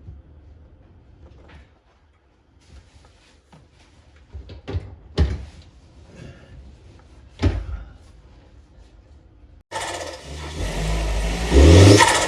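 A few scattered knocks and clunks. Then, after a sudden cut near the end, a car engine runs loudly and revs, its pitch rising briefly.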